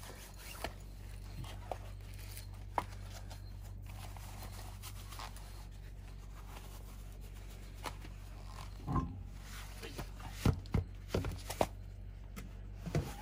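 A car wheel being pulled off its hub studs by hand: a few light clicks, then a run of knocks and thuds about nine to twelve seconds in as the tyre and alloy wheel come off and are handled. A steady low hum runs underneath.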